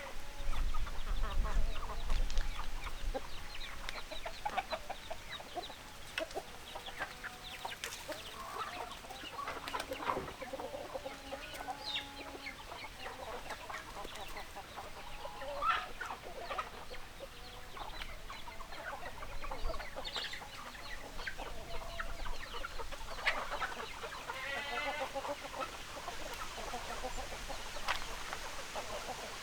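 A flock of chickens clucking, hens making many short, overlapping clucks with a few longer drawn-out calls, loudest in the first few seconds.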